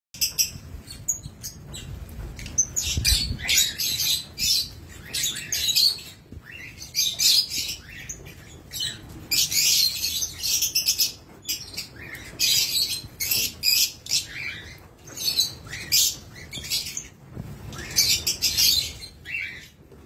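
A flock of Fischer's lovebirds chattering, with rapid high-pitched shrieks and chirps following one another almost without pause.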